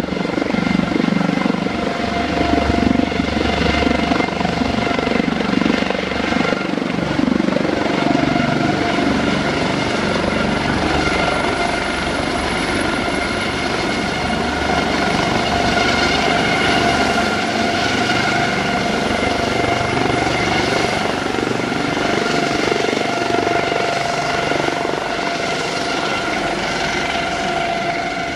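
Aérospatiale helicopter flying low past, loud and steady, with the even whine of its turbines over the noise of the rotor.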